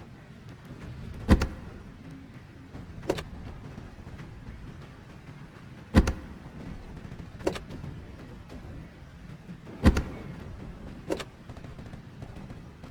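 Eggs knocked against a forehead: three heavy, dull knocks about four seconds apart, each followed over a second later by a lighter, sharper tap.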